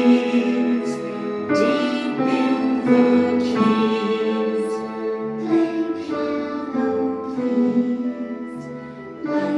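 Piano playing a slow, gentle piece: a melody over chords, with a new note or chord struck about every half second to a second, each ringing on and fading.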